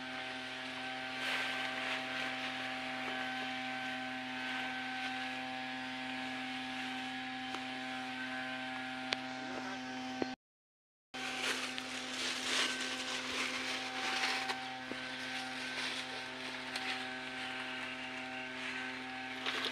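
Small engine of a two-man tea harvester running at a steady speed, a constant hum with uneven bursts of hiss over it. The sound cuts out briefly about halfway through.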